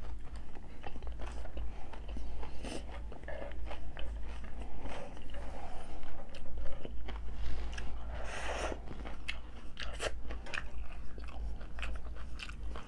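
Hard-shell tacos being bitten and chewed: many short, sharp crunches of the fried shell with chewing in between, over a steady low hum.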